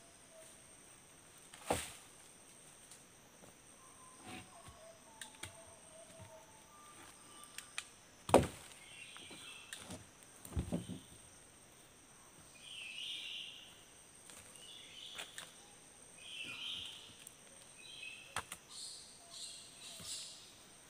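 Quiet forest ambience after the chainsaw has stopped: a steady high insect drone with scattered bird chirps. A few sharp knocks, the loudest about eight seconds in, and soft rustling steps in the second half as the worker moves over the log and sawdust.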